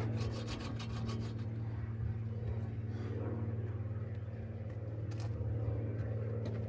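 A steady low mechanical hum, with a fast run of clicks in the first second and a half.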